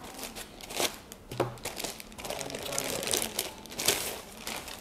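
Clear plastic protective bag crinkling and rustling as it is pulled off a new laptop, along with the handling of its foam packing end caps, with a soft thump about a second and a half in.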